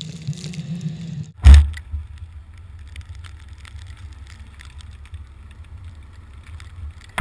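Background music cuts off about a second in. It is followed by a sudden loud thump, then a steady low rumble with faint scattered clicks, and a second loud thump at the end.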